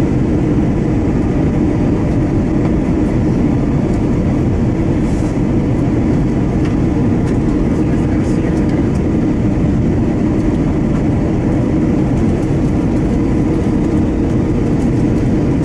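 Steady engine and airflow noise inside the cabin of an Airbus A321 with CFM56-5B turbofan engines, heard at a window beside the engine while the airliner descends on approach. The drone is low and even, with no change in thrust.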